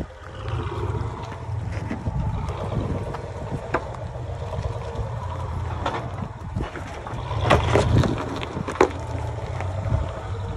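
2019 Ram Rebel pickup crawling over rocks at low speed: its engine drones steadily and low through the exhaust, with sharp crunches and pops of rocks under the tyres, loudest about seven to nine seconds in.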